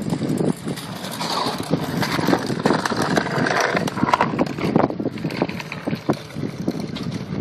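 Car doing a burnout on dirt: the engine running hard while the spinning rear tyres throw up dirt, a dense rushing noise with many sharp crackles.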